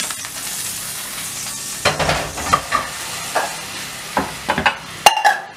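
Leftover oil sizzling in a hot, empty nonstick frying pan, then a series of knocks and clatters from about two seconds in as the pan is handled and lifted off the gas burner.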